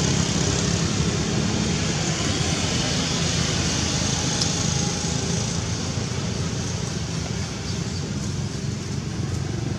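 Steady background rumble of road traffic with a low engine hum.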